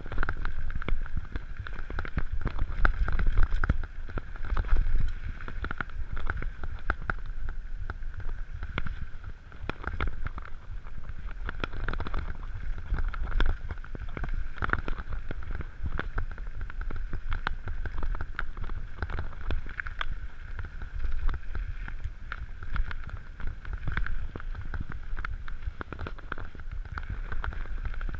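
Mountain bike descending a dirt trail: tyres running over dirt and stones with frequent irregular rattles and knocks from the bike on bumps, over a steady low rumble of wind on the camera microphone.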